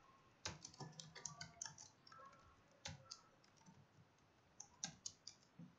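Computer keyboard typing: a quick run of faint keystrokes, then a short pause and a few more keys near the end.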